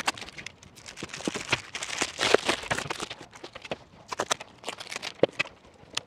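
Reflectix foil-bubble insulation and foil tape crinkling and tearing as they are peeled off a stainless steel keg, heard as a run of irregular crackles and clicks.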